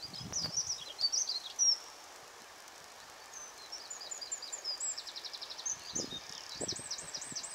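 Small songbirds singing, a string of varied chirps and whistles with a rapid trill of repeated notes about five seconds in, over a quiet outdoor hiss. A few low, noisy rumbles come and go near the start and again about six seconds in.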